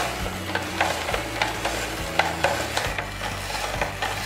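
Hand-cranked plastic spiralizer slicing cherry radishes: a run of crisp, irregular crunching clicks as the blade cuts through the raw radish.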